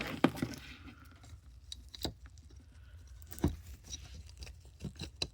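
Handling noise of scoreboard electronics and cables: a handful of scattered light clicks and knocks over a faint low hum.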